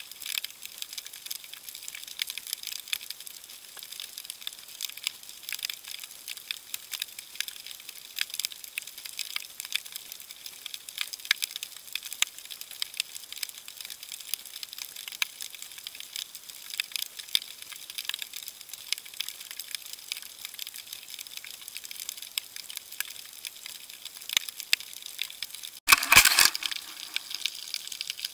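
Underwater ambience in the shallow surf: a dense, steady crackling of fine clicks. Near the end a sudden loud rush of water noise lasts about a second.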